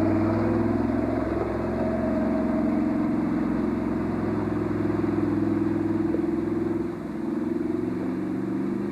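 Off-road 4x4's engine running steadily under load at a fairly even pitch, easing off slightly about seven seconds in.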